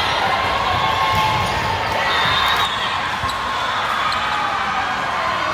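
Volleyball rally in a gym: sharp hits of the ball among a steady mix of players' and spectators' voices.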